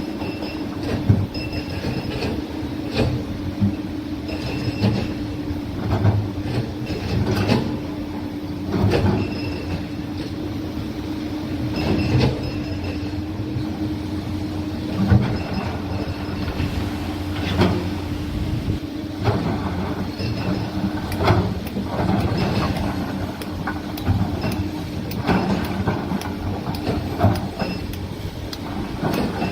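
Excavator working: a steady engine and hydraulic hum under irregular metal clanks and knocks, with short high squeals, the kind of clatter and squeal steel tracks and a bucket make.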